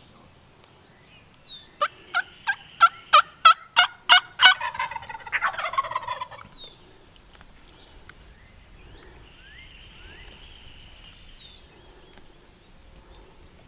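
Wild turkey calling loud and close: a run of about nine sharp notes that quicken, leading straight into a rattling, falling gobble that ends about six seconds in.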